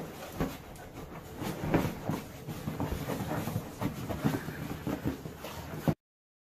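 A dog rubbing and digging its face and body along leather couch cushions: irregular scraping, rubbing and thumping of fur and claws on leather. It cuts off suddenly about six seconds in.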